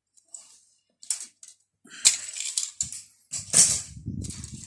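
Hard plastic model kit sprues being handled: irregular rustling and clacking of plastic frames, with a sharp clack about two seconds in and a louder stretch of handling near the end.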